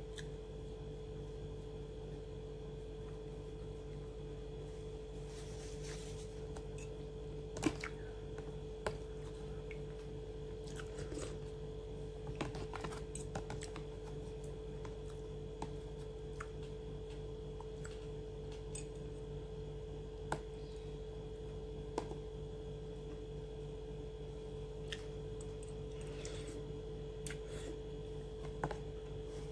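Soft eating sounds, chewing and handling of french fries, with scattered small clicks, over a steady electrical hum with a constant tone.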